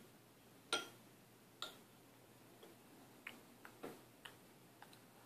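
A metal spoon clinking against a ceramic bowl: two sharp, briefly ringing clinks in the first two seconds, then several lighter clicks and taps.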